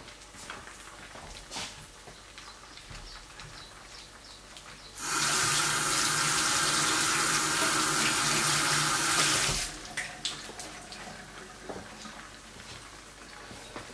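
A kitchen tap runs at full flow into the sink for about four and a half seconds, starting about five seconds in and shutting off abruptly. Before and after it, an egg frying in the pan gives a faint crackle with a few small clicks.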